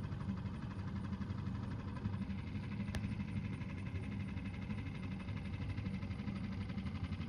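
Small outboard motor of a rented boat running steadily with a low, even buzz.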